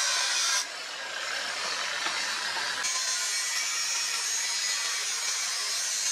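Steady abrasive grinding of a forged steel blade as it is shaped, a continuous rasping noise that changes abruptly about half a second in and again near three seconds in.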